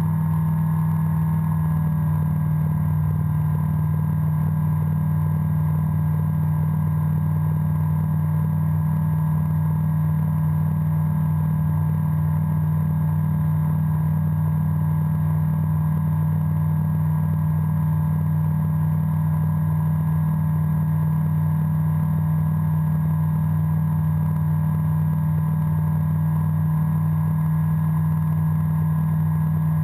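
Breezer ultralight aircraft's engine and propeller running steadily in flight, a constant low drone.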